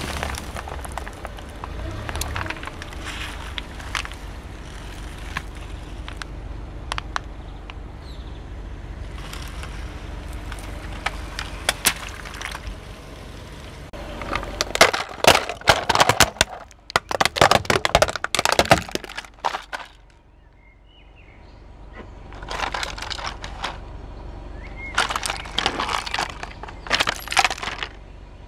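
A car tyre rolling over and crushing plastic toy trucks, their plastic bodies cracking and snapping in two long runs of dense, loud breaking in the second half. Before that there is quieter, scattered crackling as the tyre presses on other objects.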